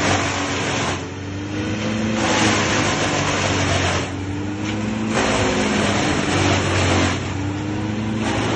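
Engine of tree-cutting power equipment running steadily, with a rushing cutting noise that swells and drops away every second or two as it bites into wood.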